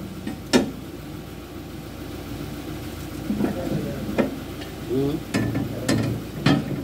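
Several sharp metal knocks and clanks from hand work on a Kubota DC70 combine harvester's header at the cutter bar, over a steady low engine hum. The strongest knock comes about half a second in, and the rest are scattered through the second half.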